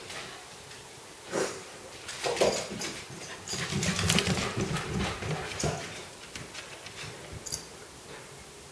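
A corgi puppy and a Bengal cat scampering and scrabbling across a hardwood floor and loose rugs, with irregular thumps and scuffles that are busiest in the middle. A brief high-pitched sound comes near the end.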